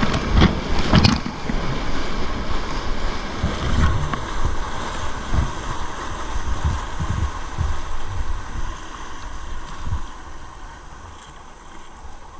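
Wind buffeting the microphone over breaking surf and rushing water around a sea kayak, with low irregular thumps. It grows quieter near the end.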